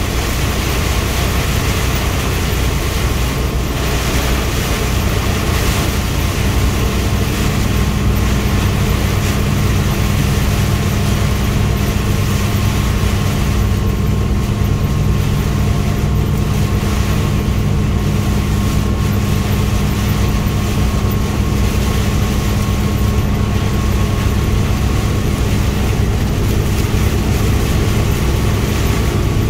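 Heavy rain pelting the windshield and roof of a truck cab, over the steady hum of the truck's engine and tyres on the flooded highway, heard from inside the cab.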